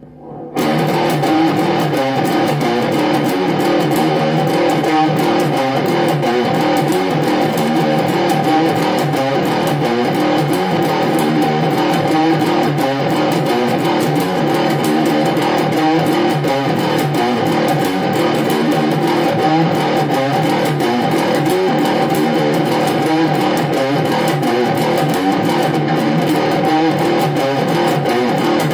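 Electric guitar playing a riff of fast-picked notes, starting abruptly about half a second in and going on without a break.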